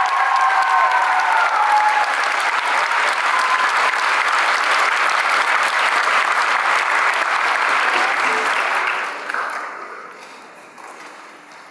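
Audience applauding, dying away about nine seconds in. A choir's last held chord trails off under the clapping in the first two seconds.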